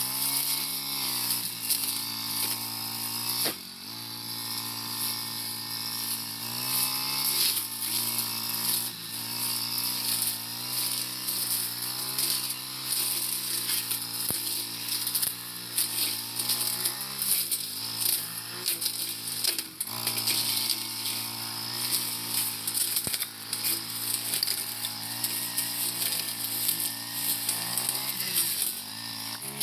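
Four-stroke brush cutter running at high revs while cutting tall, bushy grass; the engine note dips and picks up again several times as it bogs into thick growth, with a dense crackle of cut stems and debris over it.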